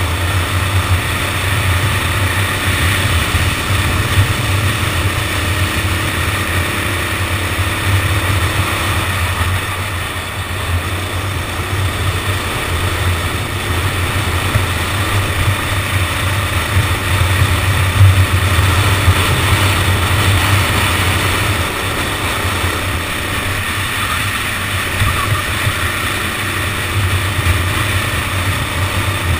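Go-kart engine running steadily through a lap, heard through an onboard camera as a low drone under a constant hiss, with no clear revving up or down.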